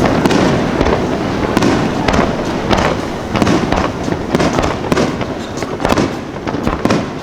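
Fireworks display: many shells bursting in quick succession, a dense run of bangs and crackles with no pause between them.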